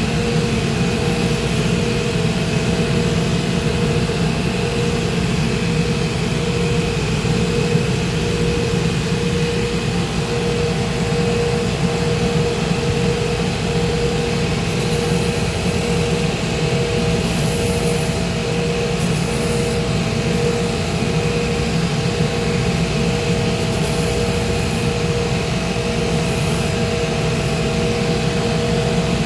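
Shoe-repair finishing machine (grinder/sander) running steadily: a constant loud motor noise with a few held tones.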